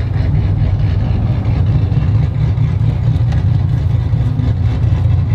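Chevrolet Silverado pickup with long-tube headers and a Carven exhaust, running at low revs with a steady, deep rumble heard from inside the cab.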